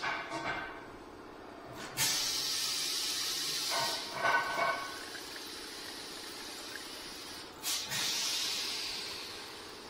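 Green engine coolant pouring from a plastic jug into a car's coolant expansion tank: a steady hissing splash with a few gurgles, surging suddenly about two seconds in and again about eight seconds in, then tailing off.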